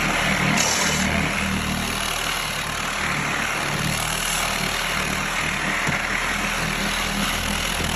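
Car buffer converted into a 10-inch orbital sander with a 60-grit cloth-backed disc, running on old wooden deck boards: a steady motor hum under an even hiss of sandpaper on wood.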